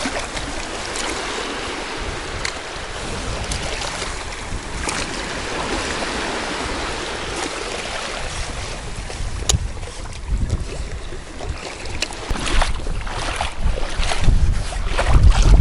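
Shallow sea surf washing and fizzing around wading legs as a steady hiss. In the second half, gusts of wind buffet the microphone with a low rumble, growing louder near the end, with a few sharp clicks.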